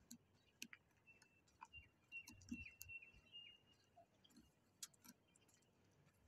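Near silence: quiet street ambience with scattered faint, irregular clicks, and a faint high thin tone with short falling chirps from about one second in to past the middle.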